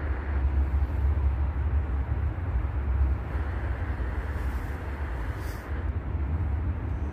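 Steady outdoor background rumble, strongest in the deep lows and wavering in level, with no distinct events.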